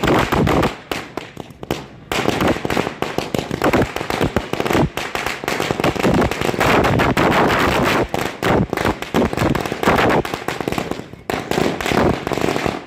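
Firecrackers going off in a rapid, continuous crackle of bangs, with a brief lull about a second in.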